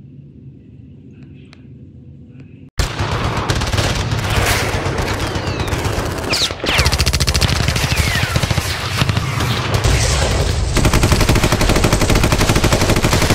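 A faint low rumble, then about three seconds in an abrupt cut to loud, rapid, continuous machine-gun and rifle fire: a battle-scene sound effect.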